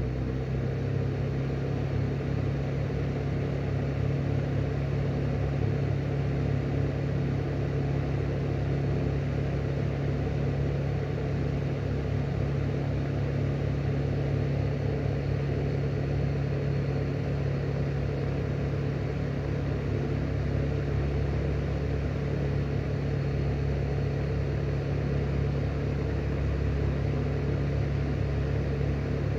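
Airflow Style 3 exhaust fan running steadily with its grille off: a constant low motor hum under an even whoosh of moving air.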